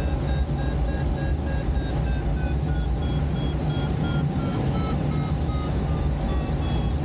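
Glider's audio variometer beeping in quick short pulses, its pitch rising for about the first two seconds and then sinking slowly: the tone that signals the rate of climb. The beeps sound over a steady low rumble of airflow and the tow during aerotow.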